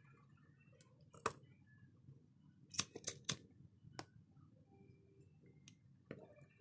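Sharp clicks and snaps of small hard parts and tools being handled during a phone repair: one early, a quick run of three about three seconds in, then two more spaced out.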